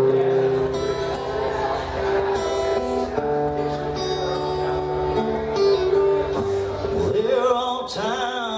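Steel-string acoustic-electric guitar strumming chords through a PA as a song's intro, and a man's singing voice comes in about seven seconds in.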